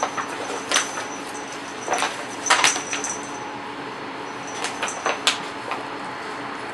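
Paper shopping bag crinkling and rustling in short bursts as a cat wriggles inside it and paws at a feather wand toy.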